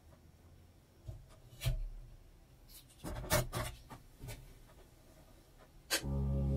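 Small clicks and rubbing from hands working a photographic enlarger. Near the end comes one sharp click, the room light being switched off, and music comes in just after it.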